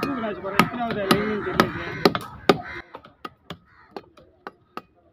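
A heavy, broad-bladed knife chopping through a large trevally on a wooden chopping block, with sharp chops about three a second that grow lighter about halfway through.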